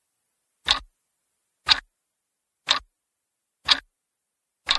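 Clock-ticking sound effect: five sharp, evenly spaced ticks, one a second, with dead silence between them.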